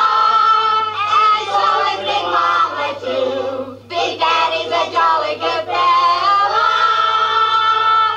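A group of children and a woman singing together as a birthday greeting, with a short break partway through and a long held note near the end.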